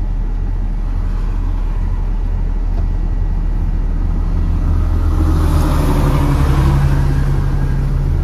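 Box truck running, heard from inside the cab: a steady low engine rumble that grows a little louder about five seconds in.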